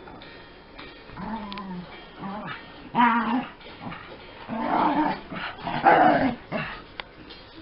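Two dogs, a Jack Russell terrier and a black wire-haired dog, growling and yapping in rough play, in several short bursts, the loudest about three seconds in and again near the end.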